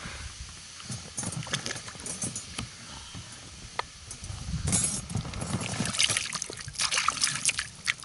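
Water sloshing and splashing around a small boat, with scattered knocks; the splashing gets louder about five seconds in and again near the end.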